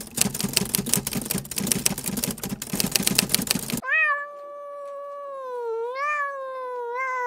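Rapid, irregular clicking and crackling for about the first four seconds, cut off abruptly. A cat then gives one long, drawn-out meow whose pitch wavers up and down and sags toward the end.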